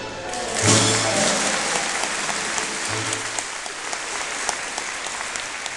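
Scottish country dance music ending on its closing chords, followed by the audience applauding from about a second in.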